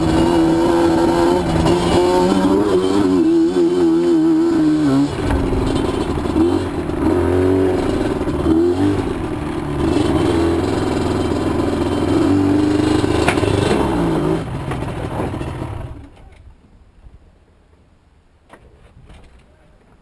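Yamaha Banshee's two-stroke parallel-twin engine, running on a Trinity 2-1 single-carburettor conversion, revving up and down as the quad is ridden. It then settles and stops about sixteen seconds in, leaving only a few faint clicks.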